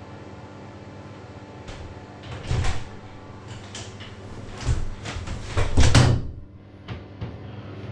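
A door opening into a small tiled bathroom, followed by a run of knocks and bumps as someone comes in. The loudest is about six seconds in, with two small clicks shortly after, all over a steady low hum.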